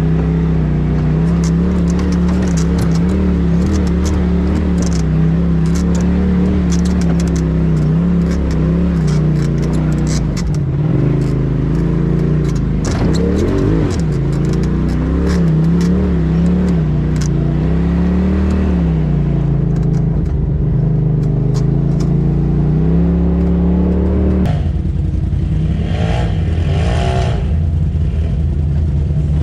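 Side-by-side UTV engine running at low revs, its pitch rising and falling with the throttle as the machine crawls over a rocky trail, with frequent clattering and knocking from rocks and the vehicle's body. Near the end the sound changes abruptly to a different UTV's engine.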